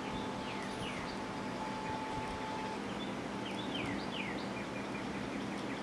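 Birds chirping: a few short falling whistled notes, then a quick run of short notes near the end, over a steady low hum and hiss.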